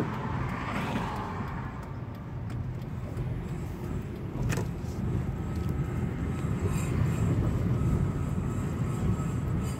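Steady low rumble of a car's engine and tyres heard from inside the cabin while driving, with a single sharp click about four and a half seconds in.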